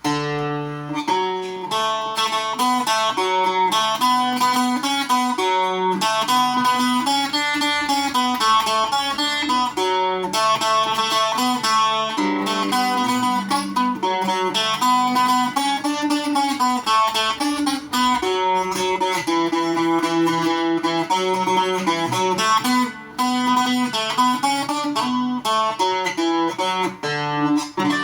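Handmade Irish bouzouki of reclaimed pitch pine being played: a plucked tune of changing melody notes over steady ringing lower strings, heard through a tablet's microphone.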